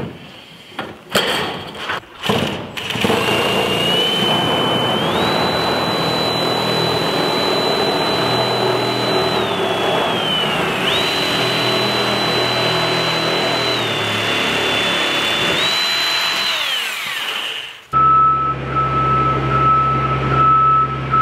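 Cordless drill with a sheet-metal shear attachment cutting coil stock: a few knocks, then a steady motor whine that steps up and down in pitch several times before stopping. After that, a scissor lift's steady warning tone sounds over a low hum.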